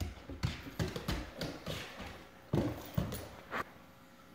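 A dog's paws and claws tapping and thumping on a hardwood floor as it pounces and paws at a bug, about nine irregular knocks that stop near the end.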